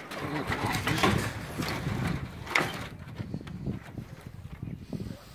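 Knocks, clanks and scraping of a tractor PTO cardan shaft being worked loose from gear tangled on a trailer, with sharper hits about a second in and again about two and a half seconds in.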